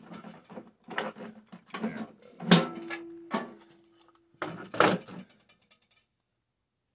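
Metal clicks and knocks of microwave parts being handled and pried open, the loudest knock about two and a half seconds in. A steady low hum lasts under two seconds and is followed by two more knocks. The sound cuts off to silence near the end.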